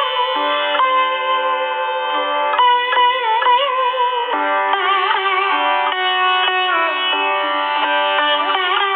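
Twelve-string guitar playing a slow melody, its notes sliding and bending from one pitch to the next over held lower notes.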